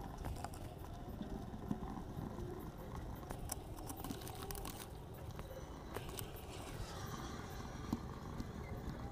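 Coloured pencil scratching and tapping on sketchbook paper: irregular short clicks and scrapes over a steady low background noise.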